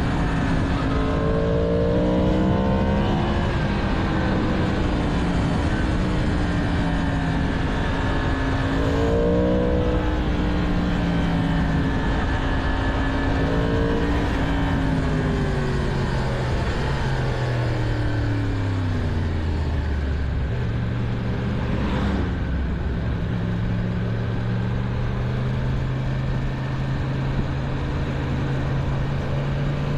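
Stock 2022 Yamaha MT-10's crossplane inline-four engine under way: its pitch rises twice in the first ten seconds, falls steadily for several seconds around the middle as the bike slows, then climbs slowly again toward the end, over a steady rush of wind and road noise.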